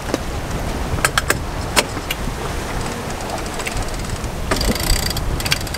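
Wind buffeting the microphone on a sailboat's deck under way, with a few sharp clicks between one and two seconds in and a burst of rapid clicking near the end from the deck gear as the mainsail is reefed.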